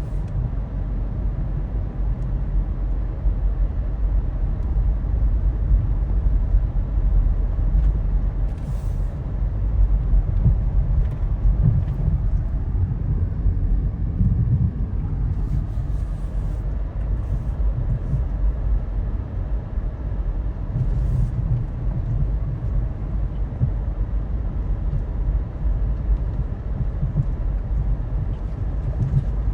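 Steady low rumble of a vehicle running, heard from inside a car, with a few brief hissing sounds.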